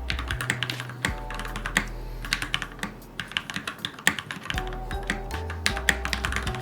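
Mechanical keyboard being typed on: rapid, irregular key clacks, with a short lull in the middle. Background music with a steady bass line plays underneath.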